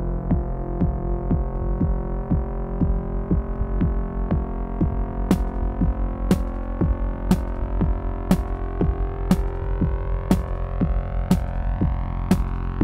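Electronic house/techno music: a steady beat about twice a second under held synthesizer chords. A sharp high click joins once a second from about five seconds in, and a rising sweep builds near the end.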